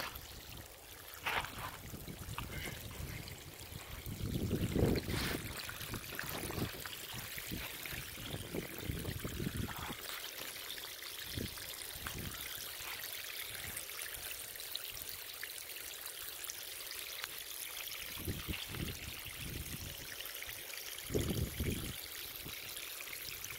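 Thin jets of water spraying from small holes in a PVC drip-irrigation pipe, hissing and trickling steadily onto the soil. A few low bumps come in around four to six seconds in and again near the end.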